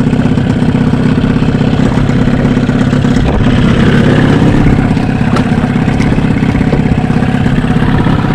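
Small boat's gasoline outboard motor running steadily at slow trolling speed, with a fast, even putter.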